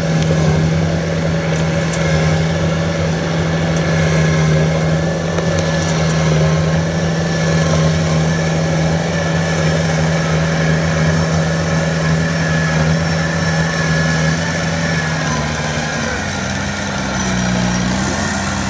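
Engine of a small tracked rice-hauling tractor running steadily while it drives loaded with rice sacks. Its steady hum dips and shifts pitch about three-quarters of the way through.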